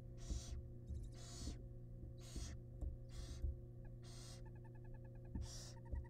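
Barn owl nestlings' begging hisses, repeated about once a second, each a short breathy rasp, over a steady electrical hum. A brief rapid ticking chatter comes near the end.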